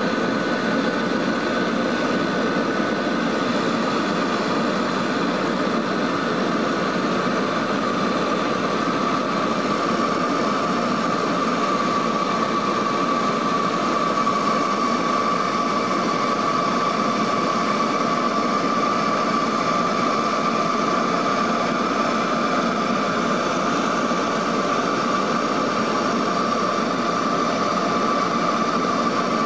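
Cabin noise of a Lockheed L-188 Electra's four Allison 501 turboprop engines on approach with flaps extended: a steady drone of engines and airflow, with a high whine that grows stronger about a third of the way in.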